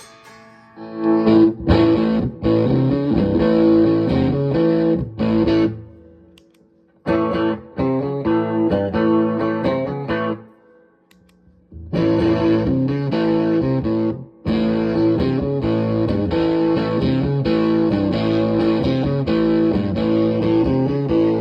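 Distorted electric guitar, a Les Paul Junior copy with a P90 pickup, played through a DIY fuzz pedal with bass and mid boost set to about half fuzz, into a 1980s Fender Super Champ amp. The guitar is played in phrases, with pauses about 6 seconds and 10 seconds in.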